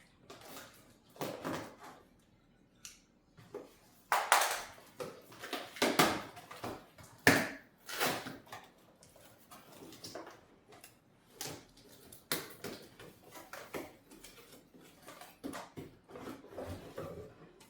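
A cardboard accessory box being opened and its packaging handled: irregular rustling, scraping and knocks, busiest around four to eight seconds in.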